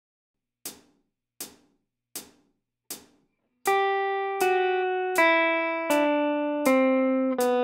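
Four evenly spaced clicks counting in, then a semi-hollow electric guitar plays the G major scale descending from high G, one note about every three-quarters of a second, each note left ringing into the next as the open strings and close intervals overlap.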